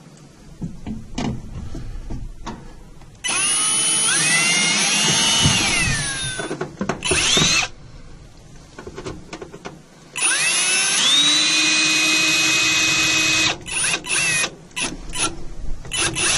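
Ryobi cordless drill/driver driving screws into the stove-top trim: two runs of about three seconds each, the motor whine rising in pitch and then holding steady, each followed by a few short blips of the trigger.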